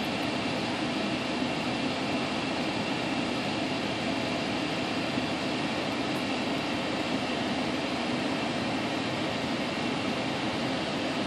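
Steady mechanical hum and hiss that holds even throughout, with no distinct events.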